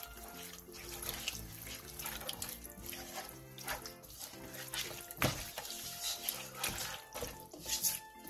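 Gloved hand squishing and tossing raw duck pieces in a soy sauce and syrup marinade in a wok: irregular wet squelches and sloshing, over background music.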